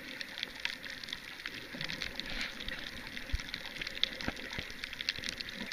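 Underwater recording: a steady crackle of many small, irregular clicks and pops over a low hiss of water against the camera.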